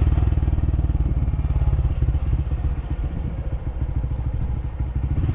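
Honda CT125 Trail motorcycle's single-cylinder engine running while the bike is ridden along, a steady rapid firing beat.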